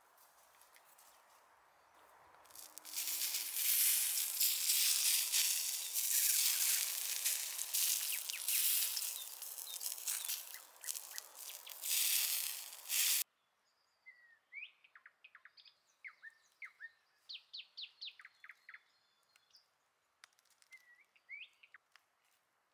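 A loud crackling hiss with many sharp clicks for about ten seconds, cut off suddenly, followed by small birds chirping in short rising and falling calls.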